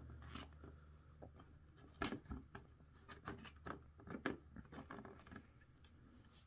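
Faint clicks and taps of a plastic action figure being handled and stood on a plastic display stand: a few scattered knocks, the loudest about two seconds in.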